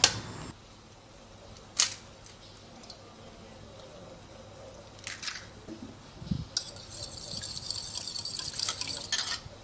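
Egg shells cracked against the rim of a china bowl, a few sharp taps, then a metal fork beating the eggs in the bowl for an omelette: a fast, continuous clinking of metal on ceramic for about three seconds near the end.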